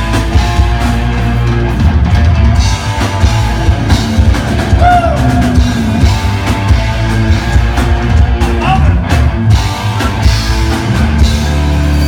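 A rock band playing live and loud: drum kit pounding a steady beat under distorted electric guitar and bass.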